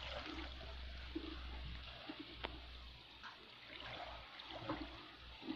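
Faint sea water lapping against shore rocks, under a steady low rumble, with a few small soft clicks.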